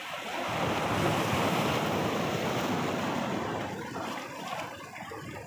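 Sea surf washing in over shoreline rocks: a rush of breaking wave that swells about half a second in and fades away near the end.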